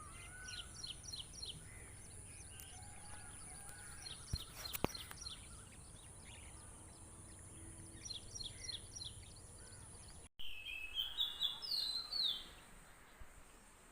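Wild birds calling in runs of short, quickly repeated high chirps several times over a steady high background hum. The sound cuts off abruptly about ten seconds in and gives way to a louder series of bird calls that step downward.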